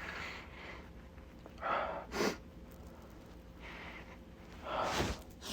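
A man's stifled sneezes, twice, about three seconds apart. Each is a quick noisy intake of breath followed by a short, sharp burst.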